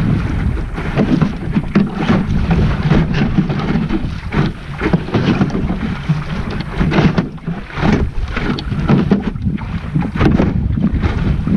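Wind buffeting the microphone of a small sailing dinghy underway, with water slapping and splashing against the hull in uneven bursts.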